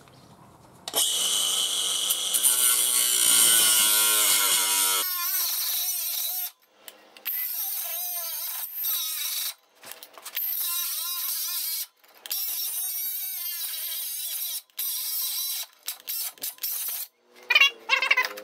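An angle grinder with a cutoff wheel cutting into the steel mower deck. It starts about a second in and runs steadily, then goes on in several runs of a few seconds each, broken by sudden gaps.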